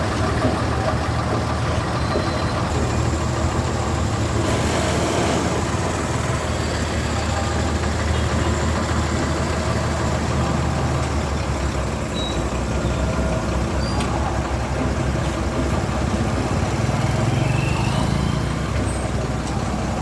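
Motor vehicle engine running at idle, a steady low hum with traffic noise around it; its pitch shifts about twelve seconds in.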